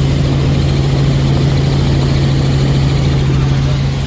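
Helicopter in flight, heard from inside the cabin: a loud, steady low hum from the rotor and drivetrain over a broad rush of turbine and air noise. The hum drops away right at the end.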